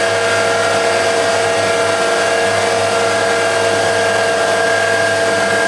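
Machine motor running steadily at constant speed, a whine of several steady tones over an even hiss, with no change in load.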